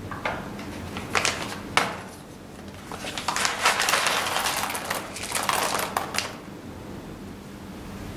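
Whole coffee beans poured from a paper bag into a grinder's clear bean hopper, a dense rattling pour of about three seconds. It is preceded by two sharp crackles as the bag is handled.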